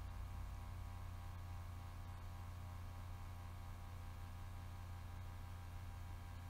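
Steady low electrical hum with a ladder of evenly spaced overtones, unchanging throughout: mains hum in the recording.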